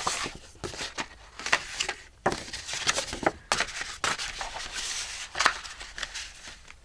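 Sheets of paper being handled and worked on a craft table: rustling and sliding, with a series of sharp clicks and snaps.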